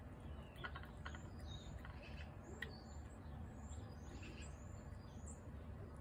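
Small birds chirping: many short, quick, high notes, over a low steady rumble.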